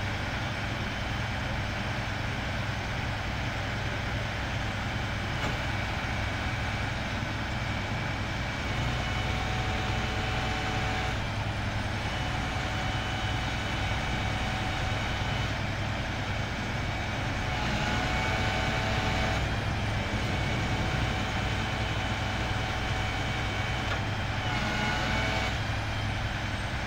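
Heavy boom truck's diesel engine running steadily with a low hum, while the truck-mounted knuckle-boom crane is worked. A higher whine comes and goes a few times, louder around the middle and again near the end.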